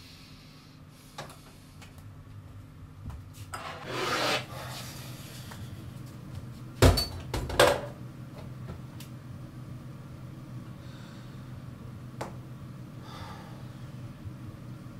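Handling noises in a small room: a brief rubbing swish about four seconds in, then two sharp knocks a little under a second apart near the middle, over a low steady hum.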